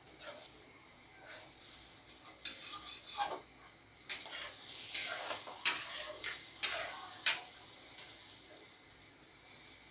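A spatula stirring and scraping through a wet masala of fried onions, spices, milk and lemon juice in a pan, with a light sizzle; a run of scraping strokes, most of them in the middle, dying down near the end.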